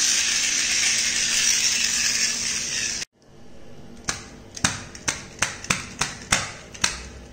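Toy monster truck whirring steadily as it is pushed along a hard floor and its wheels spin. After a sudden break about three seconds in, a run of sharp clicks, roughly three a second, as the truck is worked back and forth by hand on a towel.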